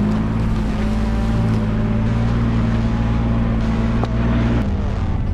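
Chevy S-10 Blazer engine running steadily while the doorless truck is driven, heard through the open door opening; the engine note changes about four and a half seconds in.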